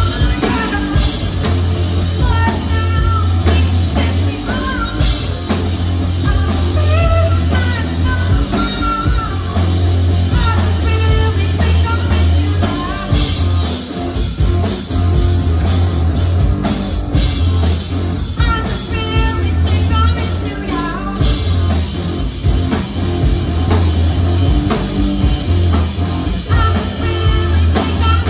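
Live rock band playing a song: drum kit, electric guitars and bass guitar, with a woman singing lead from behind the drums.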